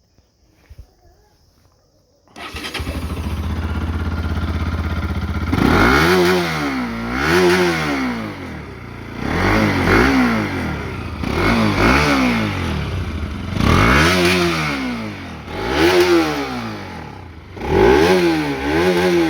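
Bajaj Pulsar RS 200's single-cylinder engine through its stock exhaust: started about two seconds in, idling steadily for a few seconds, then revved in a run of short throttle blips, about one every two seconds, each rising and falling back to idle.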